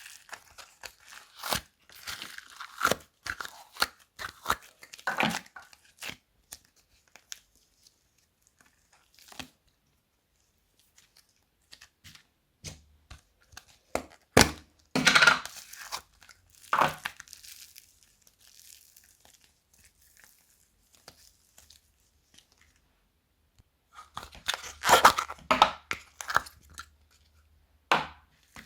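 Slime being worked together with plastic bags: scattered bursts of crackling, tearing and crinkling with sharp clicks, separated by quiet stretches.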